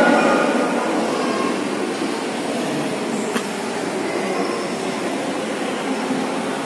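Steady background hiss of a mosque hall's room and sound system during a breath pause in a Qur'an recitation, with the echo of the last chanted phrase fading in the first second. One faint click comes about three and a half seconds in.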